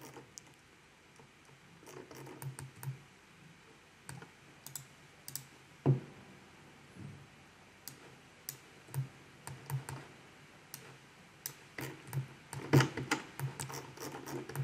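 Irregular clicking of a computer mouse and keyboard at a desk, with a sharp single click about six seconds in and a quick run of clicks near the end.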